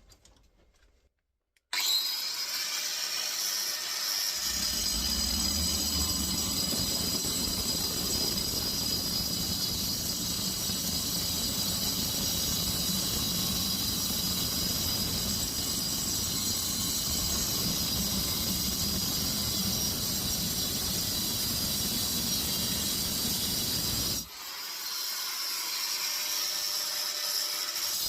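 A power tool starts abruptly and cuts into the steel shell of a small compressor, running steadily with a high whine over a heavier grinding sound. Near the end it drops off briefly and then starts again.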